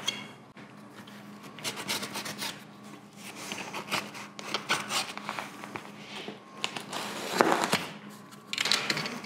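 Utility knife blade slicing and scraping through packing tape on a cardboard box, a run of short scratchy strokes, the loudest about seven and a half seconds in.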